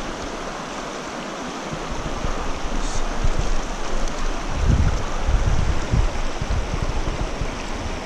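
River current flowing, a steady rush of water, with wind buffeting the microphone in gusts from a little past halfway.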